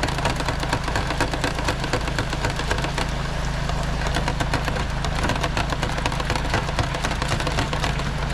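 Tilapia fillets deep-frying in an electric deep fryer: the hot oil bubbles and crackles steadily and densely. A steady low mechanical hum runs underneath.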